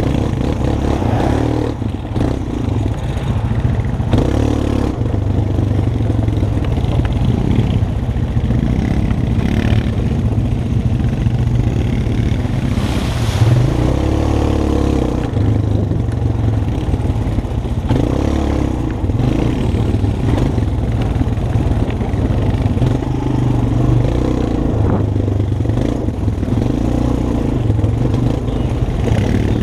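ATV (quad bike) engine running as it is ridden along a rough dirt trail, heard close from the rider's seat, its note rising and falling with the throttle.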